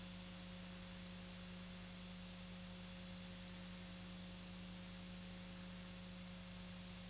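Steady low electrical hum with a fainter higher tone over an even hiss, unchanging: noise of the recording itself, with no sound of the truck.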